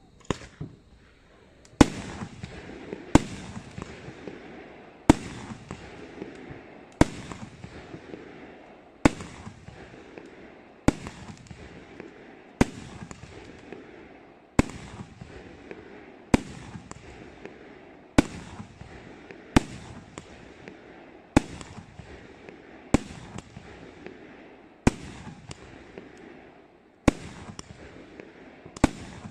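A 118-shot, 30 mm fireworks compound cake firing: a sharp bang about every one and a half to two seconds, each trailed by a hiss of burning sparks. A couple of small pops come just before the first big shot.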